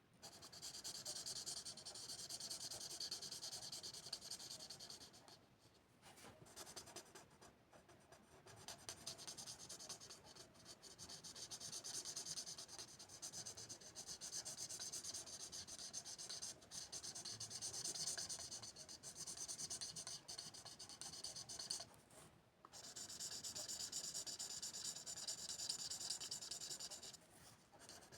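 Drawing or colouring strokes on paper, a close scratchy rubbing in long runs broken by a few short pauses.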